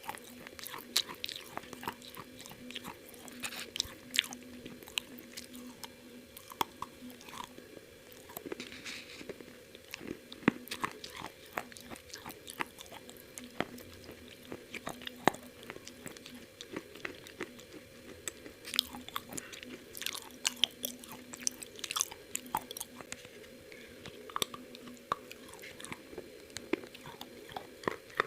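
Close-up eating of KFC fried chicken: crispy coating crunching as it is bitten and chewed, with many irregular sharp crackles.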